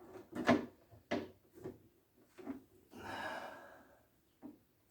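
Several short knocks and clicks as a replacement icemaker water valve is handled and set into place to be bolted on, with a short rushing sound about three seconds in.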